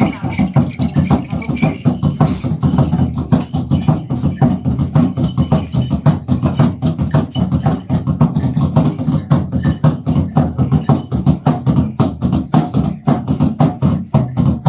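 Fast, steady drumbeats, about five strikes a second, with a full low resonance.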